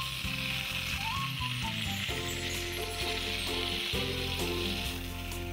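Tap water from a hand-held hose spray nozzle hissing steadily as it washes dirt from the excavator's radiator and cooler fins. Background music plays underneath.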